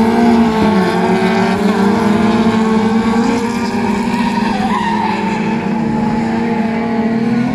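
Engines of several folk race cars running hard together, their overlapping engine notes shifting in pitch as they race through the corners.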